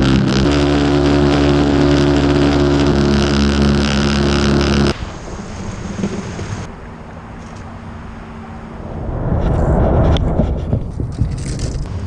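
Background music with held low notes that cuts off suddenly about five seconds in. Outdoor ambience follows, with a low engine rumble swelling and fading near the end.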